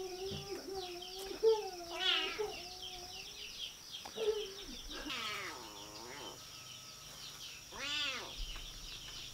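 Animal calls, drawn out and arching up and down in pitch: one about two seconds in, a longer one around five to six seconds and another near eight seconds. They sound over constant chirping of birds and a steady wavering tone that fades out about three seconds in.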